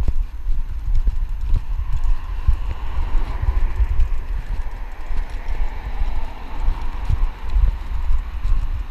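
Irregular low thumps and rumble of a body-worn action camera being jostled with each step of a walk along a pavement.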